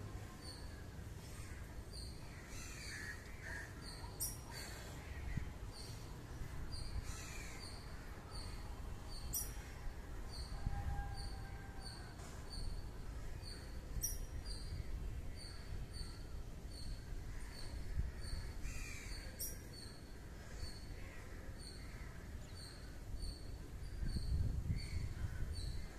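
Crows cawing now and then over a steady low outdoor rumble, with a few sharp clicks.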